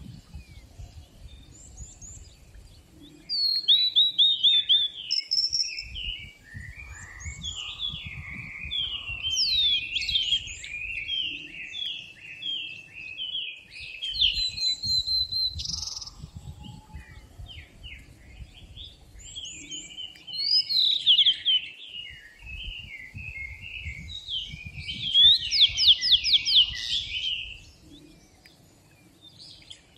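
Songbirds singing: chirps and quick whistled phrases overlapping, coming in bursts of a few seconds with short lulls between.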